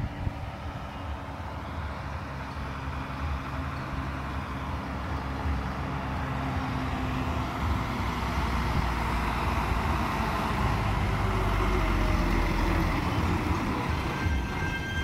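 Diesel engine of a large passenger bus approaching and pulling around a hairpin bend, its low hum growing steadily louder as it nears. A high steady tone comes in near the end.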